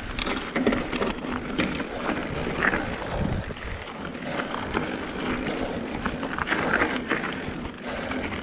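Mountain bike rolling over a dirt and gravel trail: tyre crunch and irregular rattles and knocks from the bike, with wind on the microphone.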